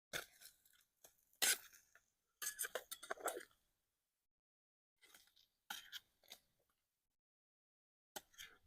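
A metal utensil scraping and clinking against a frying pan in short, scattered bursts as slices of fried Spam are moved and turned, with a busier cluster of scrapes a few seconds in.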